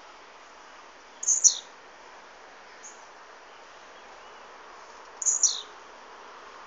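Caged blue-black grassquit (tiziu) singing its short, high song twice, about four seconds apart, each phrase ending in a downward slur.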